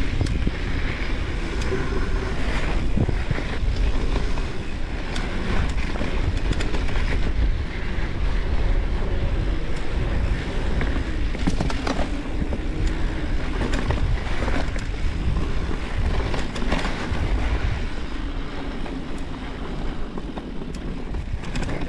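Wind buffeting a camera microphone on a moving mountain bike, over the rumble of tyres on a dirt trail, with scattered clicks and knocks from the bike over bumps.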